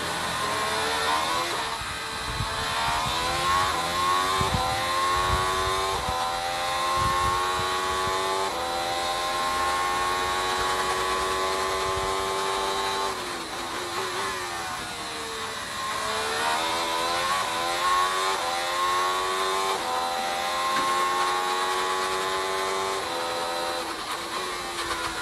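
Renault 1.6-litre turbocharged V6 hybrid Formula One engine heard onboard at full throttle. Its note climbs in steps through the upshifts and holds high near top speed. About halfway through it drops sharply as the engine comes off throttle and down the gears, then climbs through the gears again.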